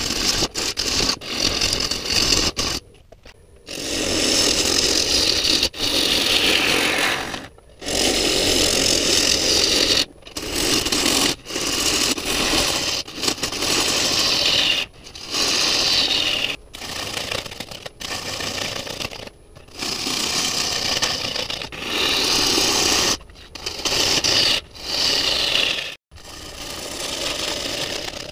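Turning tool cutting the outside of a spinning silver maple bowl blank on a wood lathe: a loud shearing scrape, with a whistling tone that slides down in pitch as the tool sweeps across in several of the passes. It comes in stretches of one to three seconds broken by abrupt short gaps.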